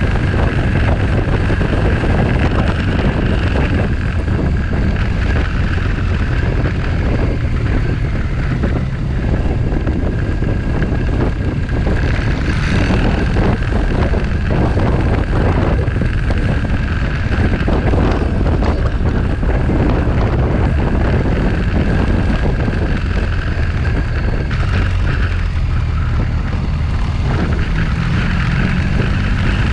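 Motorcycle engine running at road speed with heavy wind rush on the camera microphone, steady throughout.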